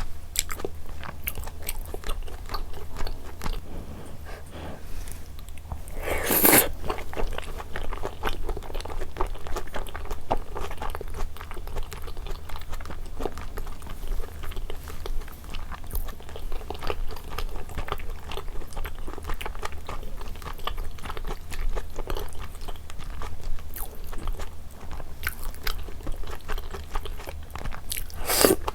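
Close-miked eating: a person chewing and biting mouthfuls of rosé jjimdak, braised chicken with thick Chinese glass noodles, with many small wet mouth clicks. A brief louder burst comes about six seconds in and another just before the end.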